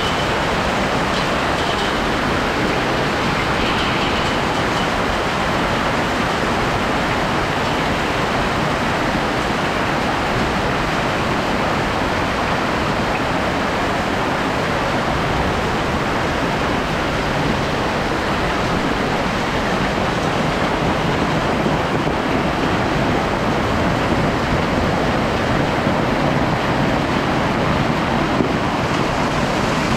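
Hailstones pelting down on roofs and the ground: a dense, steady clatter of countless small impacts that grows slightly heavier in the last third.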